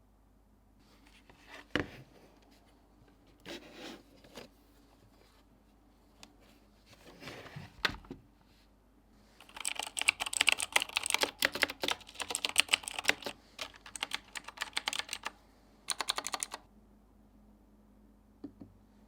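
Handling of a Razer BlackWidow X mechanical keyboard: a few scattered knocks and rubs, then a dense run of sharp plastic clicks and rattles lasting about six seconds, and a short quick rattle near the end.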